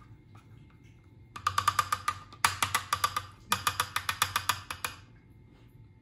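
Makeup brush knocking rapidly against the small plastic brush-washing machine in three bursts of about a second each, with a ringing plastic tone under the knocks, as the brush is shaken out after washing.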